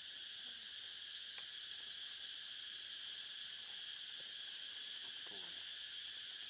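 Steady, high-pitched drone of an insect chorus, holding one even level throughout.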